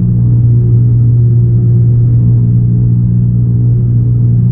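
Cessna 172N's four-cylinder Lycoming engine and propeller droning steadily, heard from inside the cabin.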